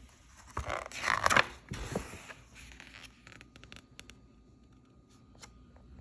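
A brief rustling scrape from something being handled, with a few sharp clicks, then a handful of faint ticks.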